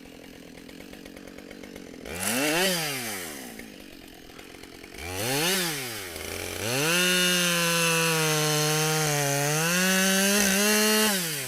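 Husqvarna 572XP two-stroke chainsaw running low, blipped up and back down twice, then held at full throttle for about five seconds, its pitch sagging slightly under load as it cuts through black locust, before being let off near the end.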